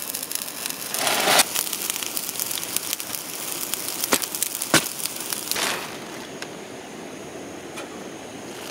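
Burning 100-yen-shop charcoal crackling and spitting sparks, a dense crackle with a few sharp pops about four and five seconds in, thinning out after about six seconds.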